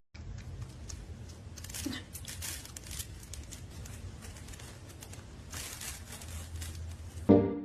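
Crinkling, rustling handling noise over a low steady rumble, with loud pitched notes, likely music, starting near the end.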